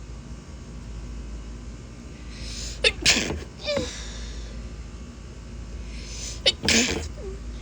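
Two stifled sneezes by a woman, about three and a half seconds apart. Each begins with a quick intake of breath and a sharp catch before the muffled sneeze.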